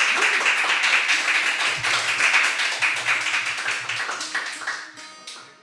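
A small audience clapping, dying away near the end.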